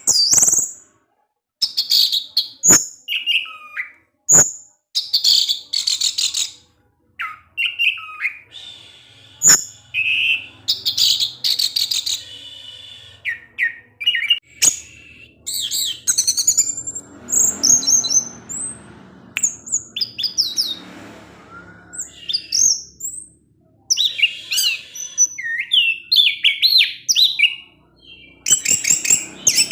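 Orange-headed thrush singing a fast, varied string of chirps, whistles and trills in bursts with short pauses.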